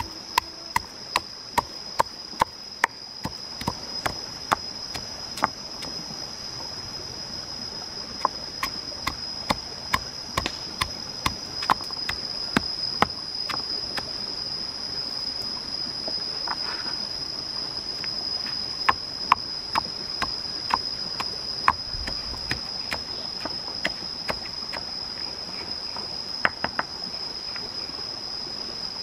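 Stone pestle pounding garlic and chilies in a stone mortar: sharp knocks about two to three a second, in runs with short pauses. A steady high insect drone runs behind.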